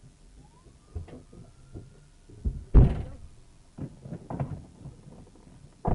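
Dash-camera audio inside a pursuing patrol car: a thin rising whine, then a loud sharp thud about three seconds in and a cluster of smaller knocks and thumps a second later.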